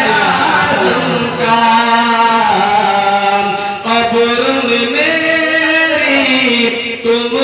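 A man singing a naat into a microphone in long drawn-out notes, the melody wavering and sliding within each held note, with brief breaths between phrases.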